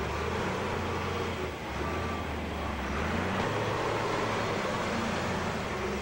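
Backhoe loader's diesel engine running steadily under load as its front shovel pushes and scoops dirt, its low engine note shifting a little as it works.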